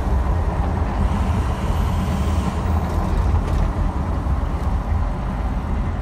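Ford F-350's 6.0 Power Stroke V8 turbo-diesel and road noise heard from inside the cab while driving, a steady low rumble. The intermittent RPM-related whine being chased has dropped out for now.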